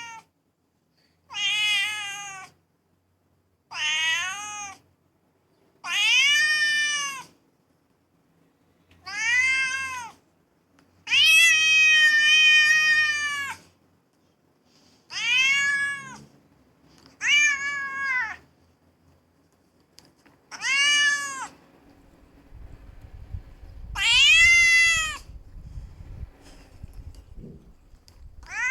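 Domestic cat meowing over and over, about ten drawn-out meows a couple of seconds apart, each rising and then falling in pitch, one of them held longer than the rest. A low rumble joins in underneath near the end.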